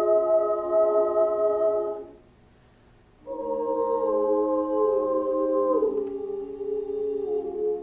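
Small girls' choir singing a cappella in sustained chords. They hold a chord, stop for about a second just after two seconds in, then come back in on a new chord, with the notes shifting slowly.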